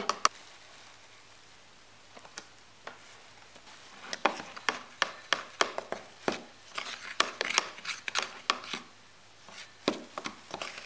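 Metal spoon scraping and clicking against a small plastic bowl as dry rice flour and wheat flour are stirred together, in a quick run of strokes starting about four seconds in and a few more near the end.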